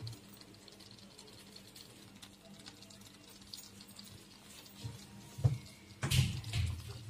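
Grated sweet potato simmering in milk in a non-stick kadai, a faint low bubbling over a steady hum. A few loud sudden thumps come about five and a half and six seconds in.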